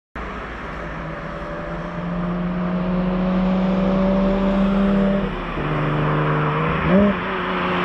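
Porsche 996 GT3's naturally aspirated 3.6-litre flat-six pulling under load, revs slowly climbing over a steady rush of road noise. About five seconds in, the pitch drops at a gear change, and shortly after there is a brief flare of revs.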